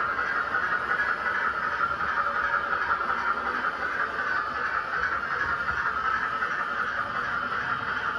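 Model steam locomotive with a Zimo sound decoder running on the track with a train behind it: a steady hiss-like running sound without a clear rhythm.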